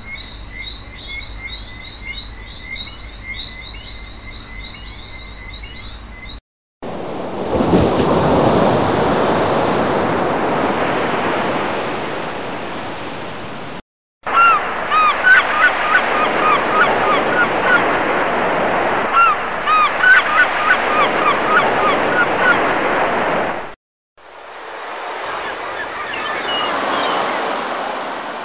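A run of separate outdoor ambience sound effects, each cut off abruptly. First comes repeated high chirping, then a steady rushing like surf or wind, then rushing noise with many short chirping calls over it, then the rushing again.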